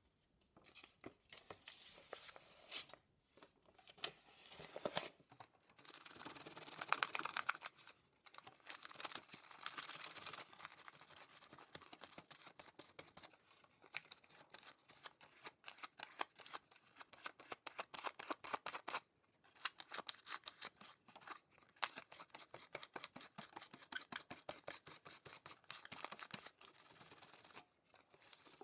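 Scrap of paper rubbed over embossed metal foil to wipe black paint off the raised pattern: a fast, irregular scratchy rustle and crinkle that comes in spurts with short pauses.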